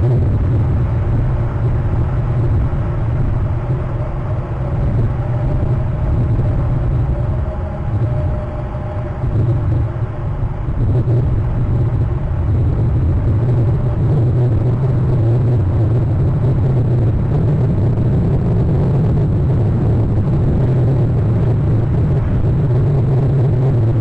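Steady low rumble picked up by an outdoor nest-cam microphone, easing slightly about eight to ten seconds in.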